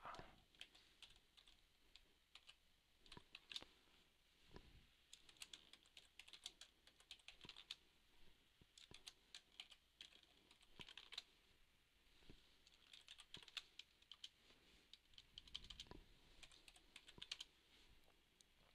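Faint computer keyboard typing in short irregular bursts of keystrokes with pauses between them.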